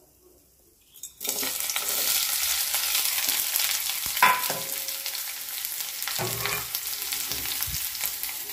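Chopped onion and green chillies dropping into hot oil in a kadai: a sudden sizzle starts about a second in and keeps up steadily, with a short knock about four seconds in.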